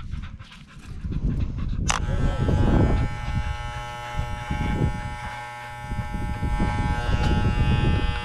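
Wahl electric pet clippers switch on about two seconds in and buzz steadily while trimming the fur on a dog's paw, with the dog panting close by.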